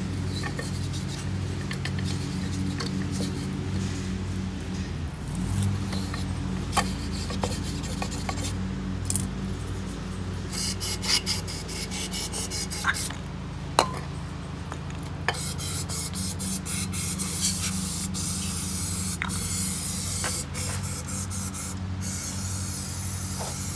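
Aerosol brake cleaner hissing out of the can into a throttle body's clogged EGR ports, mixed with the scraping and scrubbing of a pipe cleaner and brush working the carbon gunk loose. Long spray hisses fill most of the second half.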